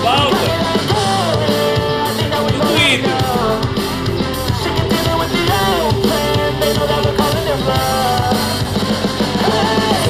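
Rock-pop song with singing, drums and guitar playing loudly from a Tronsmart Halo 110 portable Bluetooth speaker set to about 75% volume.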